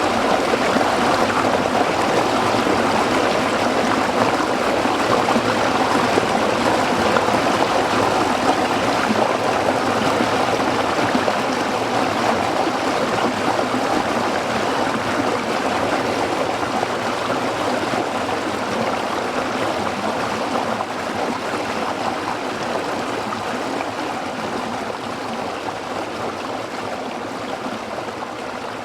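A shallow stream running over rocks, a steady rushing and babbling of water that slowly gets quieter over the second half.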